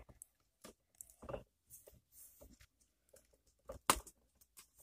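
Scattered small plastic clicks and taps from hands handling an action camera in its plastic waterproof housing on a flexible tripod, with one sharper knock about four seconds in.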